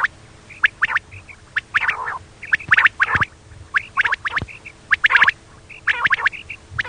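Female quail calling: quick clusters of two or three short, sharp 'kirik' notes, repeated irregularly every half second to a second, with softer chirps between.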